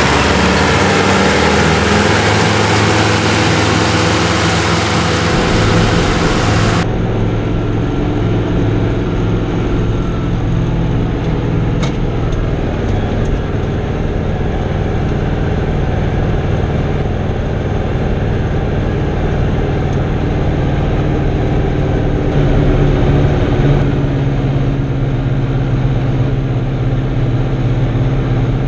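Fiatagri 88-94 tractor's 3.9-litre turbocharged diesel running steadily under load while driving a BCS Neva R8 disc mower through grass. The sound changes abruptly about seven seconds in, from outside the tractor to inside the cab, and the engine note rises briefly a little over twenty seconds in.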